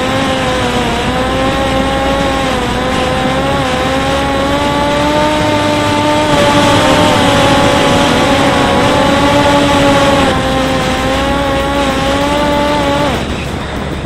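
Parrot Disco fixed-wing drone's electric motor and propeller humming steadily in flight over a rush of wind, the pitch wavering slightly. The motor cuts off abruptly near the end, switched off for an unpowered glide down, leaving only the wind noise.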